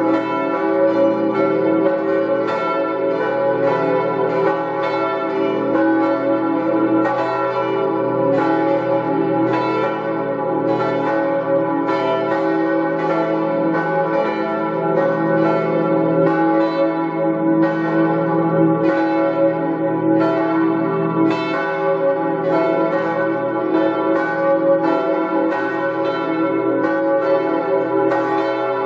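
Church bells ringing in a continuous run of strikes, about one to two a second, each tone ringing on into the next so the sound never breaks.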